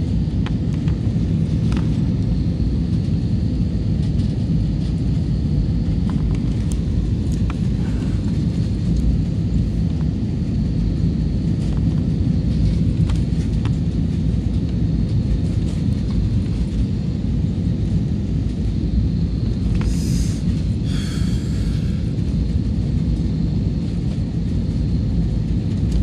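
Airliner cabin noise from a window seat: the steady low rumble of the jet engines and airflow as the plane climbs away in a go-around, with a few faint clicks and two brief higher sounds about twenty seconds in.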